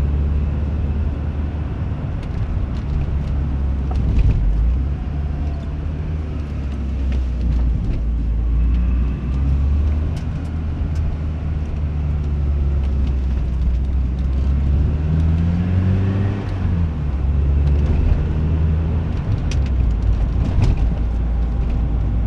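Porsche 944 on the move: engine running with a steady low drone under road noise, its pitch rising and shifting as the revs change about two-thirds of the way through. A few light ticks near the end.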